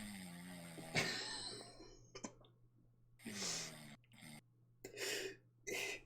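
A person's breathy, throaty sounds over a steady low electrical hum: one long exhale with a falling pitch, then four short breathy bursts, each under a second long.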